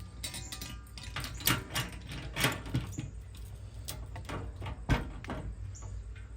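Irregular small metal clicks and knocks of screws, nuts and a latch bracket being handled and fitted against a grill lid, the sharpest about one and a half, two and a half and five seconds in.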